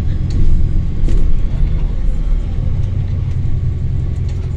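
Diesel bus engine running with a steady low rumble, a faint high-pitched turbo whine above it, and a few light clicks and rattles.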